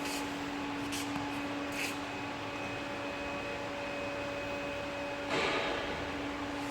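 Hydraulic two-post vehicle lift lowering: a steady hum, with a few light clicks in the first two seconds and a short hiss about five seconds in.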